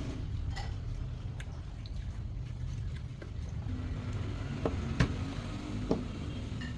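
Light clicks and knocks of small parts being handled, the loudest about five seconds in, over a steady low hum.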